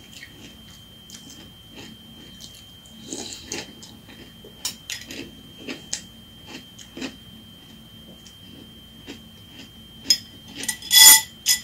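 Spoon clinking and scraping in a glass bowl of cereal and milk, with crunchy chewing between mouthfuls, as scattered short clicks. A louder ringing clink comes near the end.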